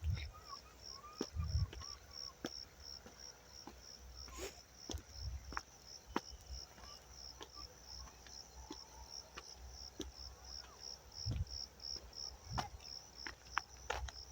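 Cricket chirping steadily, a high, even pulse about two to three times a second, with scattered sharp clicks and a few low thumps.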